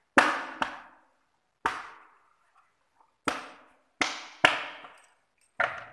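Hard plastic clacks and knocks from a Makita E2835 chainsaw's red cover and housing being pressed into place and handled, about seven sharp hits at uneven intervals.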